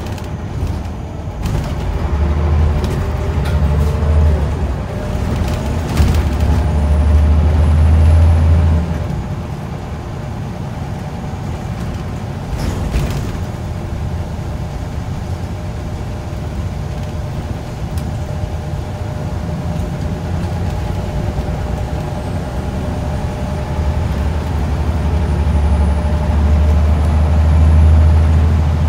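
Inside a Scania L94UB single-deck bus on the move: the diesel engine's deep drone swells twice as the bus pulls hard, each time with a faint high whine that rises slightly, then eases back to a steadier cruise with body rattle and road noise. A single knock comes about six seconds in, and a short hiss or clatter about thirteen seconds in.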